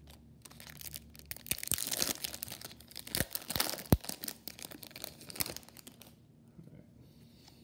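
Foil baseball-card pack wrapper being torn open and crinkled by hand, for about five seconds, with a few sharp clicks in the middle.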